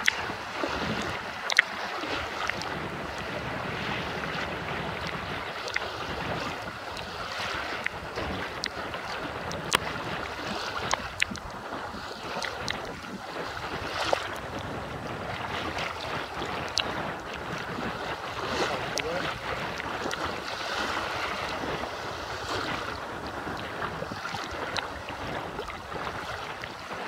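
Wind buffeting the microphone over choppy waves washing and splashing around a camera held just above the water surface, with a few sharp clicks scattered through.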